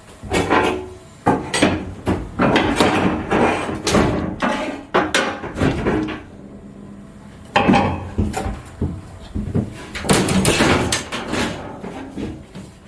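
Irregular knocking, banging and clattering from tearing out a boat's interior fittings, in two spells with a short lull about halfway through.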